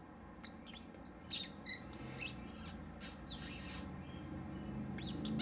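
Small birds chirping: a string of short, high, sliding chirps and squeaks, with a brief harsher, hissy sound about three seconds in.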